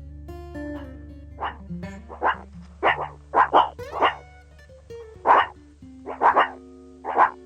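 A dog barking about a dozen times in short, sharp barks with uneven gaps, over soft background music.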